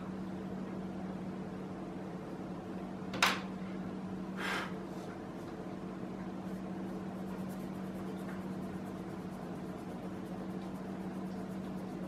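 Steady low electrical hum of a running appliance or fan in a small room. A single sharp tap comes about three seconds in and a short rustle of a hand on paper about a second later.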